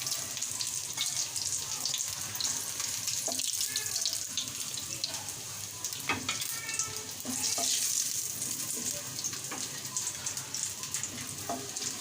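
Batter-coated chicken pieces sizzling in hot frying oil in a pan, a steady hiss, with a few sharp clicks of a utensil against the pan.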